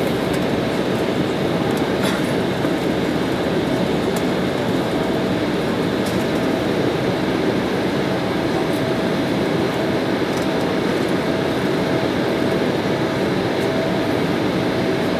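Cabin noise inside an Embraer E195 taxiing: the steady drone of its GE CF34 turbofans at low taxi power together with the rumble of the wheels rolling over the taxiway, with a thin steady tone running through it. A few faint clicks come now and then.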